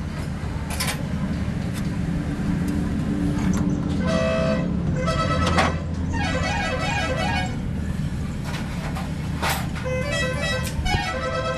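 A vehicle horn sounds in several long blasts, the middle one wavering up and down in pitch like a musical horn, over a steady low engine rumble.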